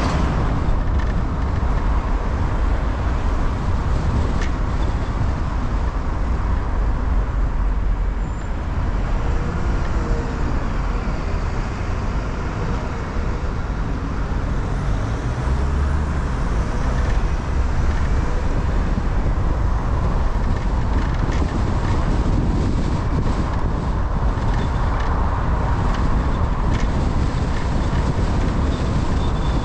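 Steady road and engine noise of a car being driven, heard from inside the cabin, with a strong low rumble.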